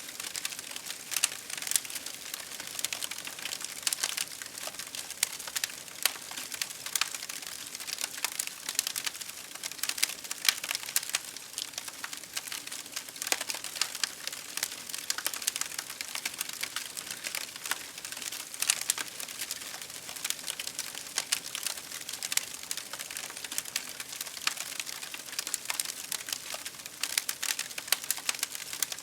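Campfire crackling, with dense irregular pops and snaps over a steady hiss of rain.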